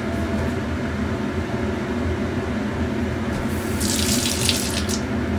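Kitchen tap running briefly, for about a second and a half starting about three and a half seconds in, over a steady low hum.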